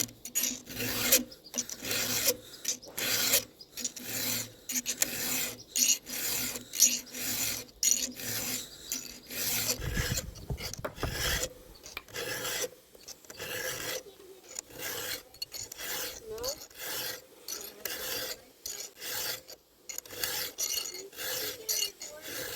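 Round file rasping across the cutter teeth of a chainsaw chain in a steady run of short, soft strokes, metal scraping on metal. There is a brief low rumble about ten seconds in.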